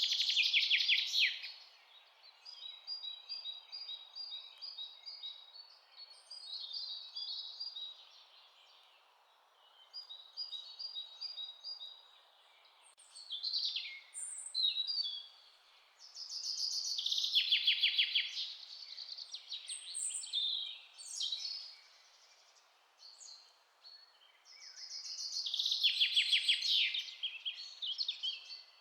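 Songbirds singing in a forest: a loud song that breaks into a fast, falling trill comes three times, with softer chirping phrases in between. A faint steady hiss lies underneath.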